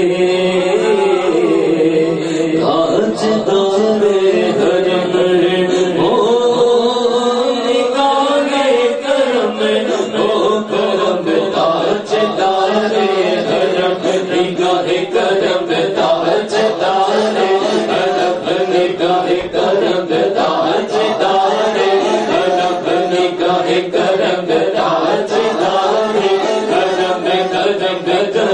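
Men's voices singing an Urdu naat through microphones, a chant-like devotional melody with long held notes. From about ten seconds in, a rhythm of sharp beats runs under the singing.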